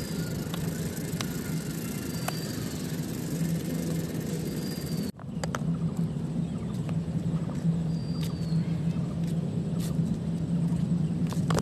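Outdoor ambience: a steady low rumble, with a few short high falling chirps over it. The sound drops out briefly about five seconds in.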